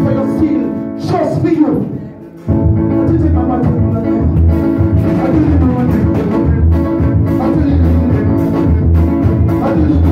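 Music with a strong, steady bass, briefly dropping away about two seconds in before coming back.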